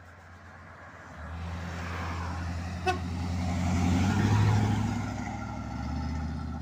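Full-size conversion van driving past, its engine growing louder from about a second in, passing close around four seconds in, then fading as it moves away. A very short horn toot sounds about three seconds in.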